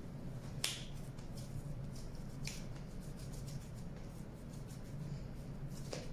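Hands kneading sticky homemade cold porcelain dough, with three sharp wet smacks as the dough and palms pull apart, the loudest about half a second in, and fainter ticks between. A steady low hum sits underneath.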